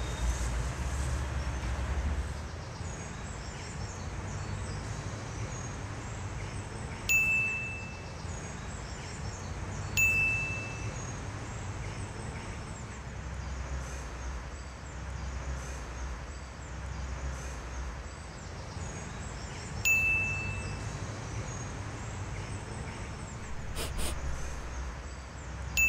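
A bright, identical chime-like ding sounds four times, several seconds apart, each ringing briefly before dying away. Under it runs a steady low rumble.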